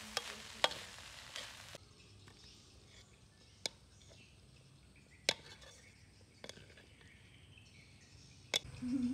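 Corn kernels sizzling in a metal wok while a spatula stirs and scrapes them, with quick clicks. About two seconds in the frying stops, and a few separate sharp clicks follow as the fried corn is slid from the wok onto a plate.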